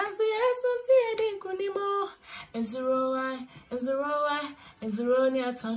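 A woman singing an old Ghanaian song in Twi, solo, in phrases of long held notes with short breaks between them.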